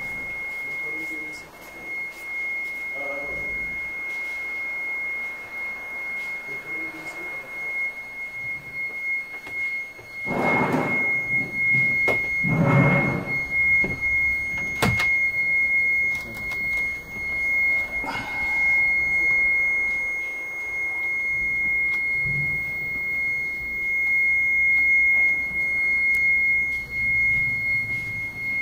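A steady high-pitched tone sounds throughout, with a few soft knocks and handling sounds over it and a sharp click near the middle.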